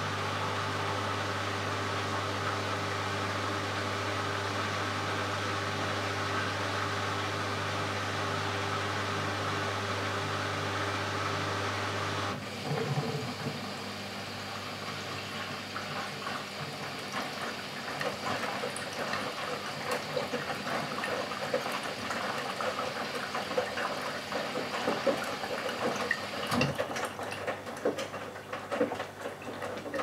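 Bosch WAQ283S1GB front-loading washing machine mid-cycle. A steady mechanical hum cuts off abruptly about twelve seconds in. Water then sloshes and splashes with small knocks as the drum turns the wet laundry, getting busier toward the end.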